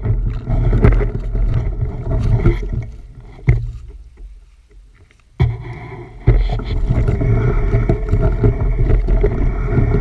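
Rumbling, rattling noise of a bicycle ride over rough ground, with wind on the microphone and many small knocks. It dies down to quiet about four seconds in, then starts again abruptly a second or so later.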